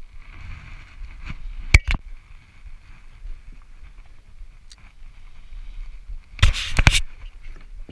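Handling noise on a chest-mounted camera while a spinning rod and reel are worked: two sharp clicks about two seconds in, then a short loud cluster of knocks and rubbing near the end as the camera is jostled, over a faint steady hiss.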